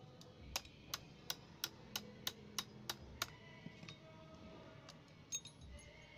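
A run of about nine sharp clicks, evenly spaced at roughly three a second, then a few lighter scattered clicks, over faint background music.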